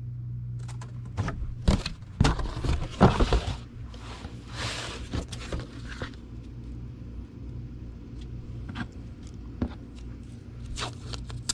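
Packing sounds: a comic book being handled and slid into a cardboard mailer, with scattered clicks and knocks and two scraping rustles about three and five seconds in. A steady low hum runs underneath.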